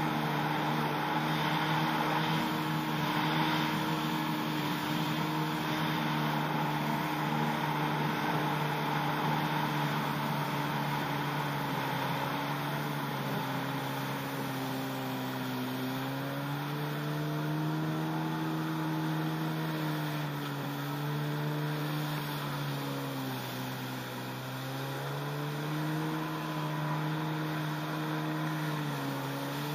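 Yamaha SuperJet stand-up jet ski's two-stroke engine running under way, with water rushing under the hull. Its pitch holds steady at first, then dips and rises several times in the second half as the throttle is eased and reopened.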